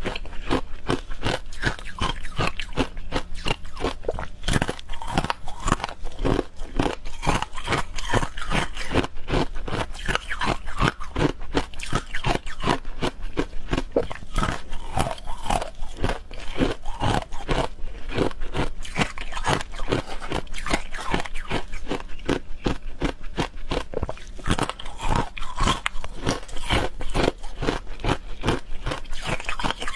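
Close-miked crunching and chewing of hard frozen ice sticks coated in green powder: a dense, continuous run of sharp cracks and crackles as the ice breaks between the teeth.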